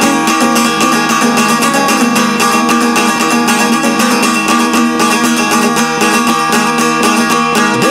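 Šargija, the long-necked Bosnian folk lute, played solo with rapid, even strumming over steady ringing drone notes: the instrumental opening of a folk song.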